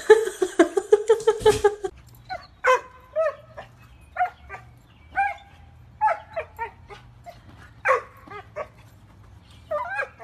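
A small dog yipping and whining in short, high, pitched calls, one every half second to a second. This follows a quick run of rapid pitched calls over the first two seconds.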